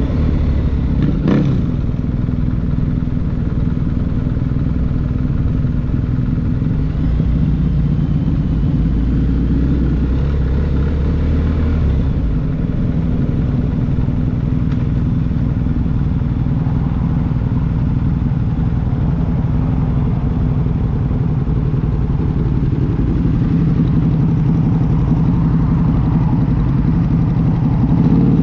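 BMW R1250GS boxer-twin engine running at low speed through an SC-Project SC1-R GT exhaust, steady throughout, with one sharp click about a second in.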